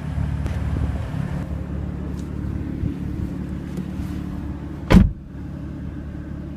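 Steady low hum of a 2015 BMW M4's twin-turbo inline-six idling, heard inside the cabin, with one sharp thump about five seconds in.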